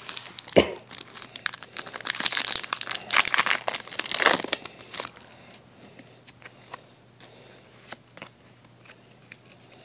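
A Pokémon card booster pack's foil wrapper being torn open and crinkled in the hands, loudest in the first half. After that come faint ticks as the cards are slid out and handled.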